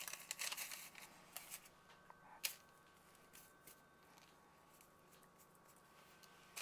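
Faint rustling and light taps of hands handling soft biscuit dough and parchment paper in the first couple of seconds, with one sharp click about two and a half seconds in. After that there is near silence with a faint steady hum.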